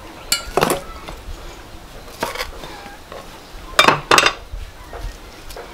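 Kitchen knife knocking against a wooden chopping block while cutting: a few sharp, separate knocks, with the loudest two in quick succession about four seconds in.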